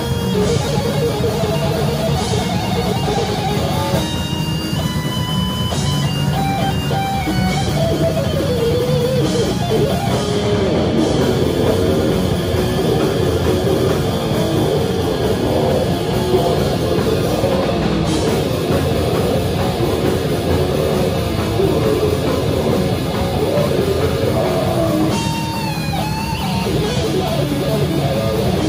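A live metal band playing: distorted electric guitars over a drum kit. Lead guitar lines with bent notes stand out about four seconds in and again near the end.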